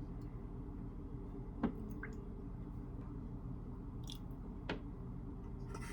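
Steady low hum of room tone with two brief sharp clicks, one about a second and a half in and a softer one near the end.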